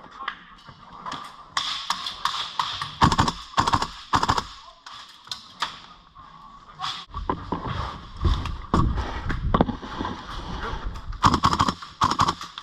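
Airsoft rifles firing: sharp cracks in short clusters, a few around three to four seconds in and several more near the end, over outdoor background noise and distant voices.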